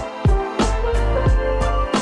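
Background music with a steady beat: deep, booming bass drum hits about every two-thirds of a second under sustained tones.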